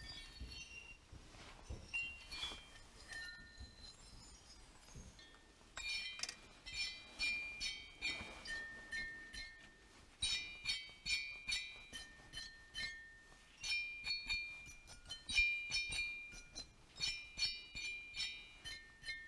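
Fingers flicking and tapping crystal formations on a cave wall, giving glassy clinks that ring briefly. Sparse at first, then a quick, uneven run of clinks from about six seconds in.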